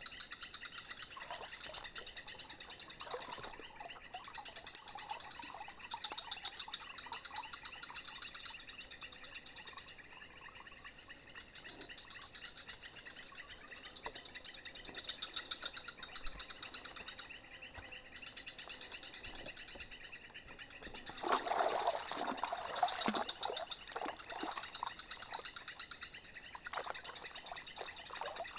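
Steady high-pitched insect chorus that runs on without a break. About three-quarters of the way through, a louder rush of noise lasts about two seconds.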